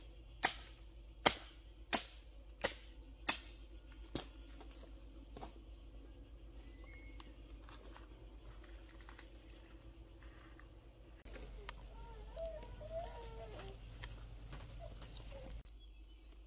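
A digging tool chopping into the hillside soil: five sharp strikes about two-thirds of a second apart in the first few seconds, then it stops. Behind it an insect keeps up a high chirping, about three pulses a second. About eleven seconds in, a rustling with a few short chirps starts and runs for about four seconds.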